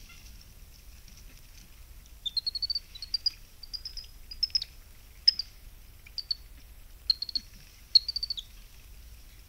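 High chirping animal calls: a quick run of rising notes about two seconds in, then short single and paired chirps spaced over the next six seconds, over a faint steady high hiss like insects.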